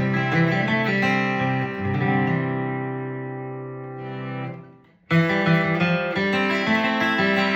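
Steel-string acoustic guitar flatpicked in bluegrass style. A run of picked notes ends on a chord that rings out and slowly fades. About five seconds in, the sound drops to a brief silence, then picking starts again abruptly.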